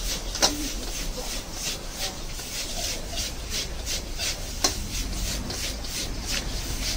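Metal spatula scraping and tossing noodles in a wok, in rhythmic scrapes about two to three a second. Two sharper clanks sound against the wok, about half a second in and near five seconds in.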